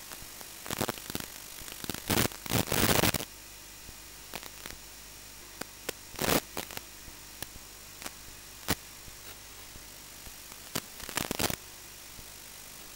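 Steady static hiss from an analog FPV video receiver's audio channel, broken several times by loud crackling bursts of static, the loudest about two to three seconds in; the bursts are typical of brief breakups in the video link's signal.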